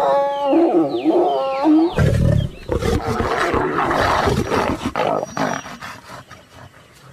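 Asiatic lions snarling and growling, typical of a mating pair: pitched, bending snarls for the first two seconds, then a loud, rough roaring snarl that dies away over the last couple of seconds.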